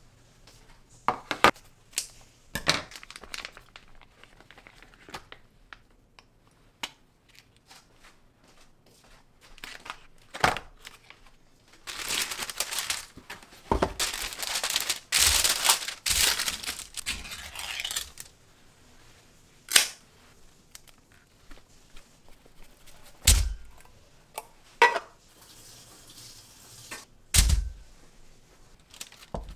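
Kitchen handling sounds: scattered clicks and knocks, a few seconds of packaging rustling and tearing near the middle, and two heavier thuds of things set down on the counter in the second half.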